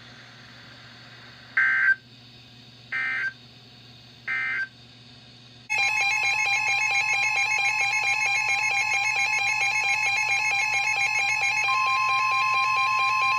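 Three short Emergency Alert System (SAME) digital data bursts about a second and a half apart, then, about six seconds in, the EAS attention signal starts: a loud, steady two-tone alarm.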